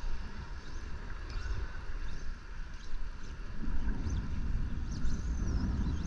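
Low, steady rumble of wind on the microphone and seawater lapping close by, getting somewhat louder a little past halfway.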